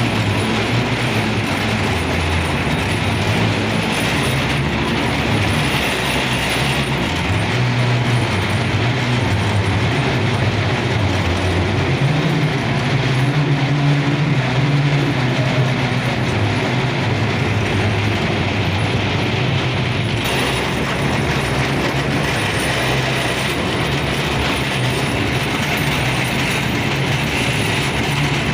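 Train running steadily along the track: a continuous rumble and rattle of the wheels and cars, with a low hum underneath that shifts slightly in pitch.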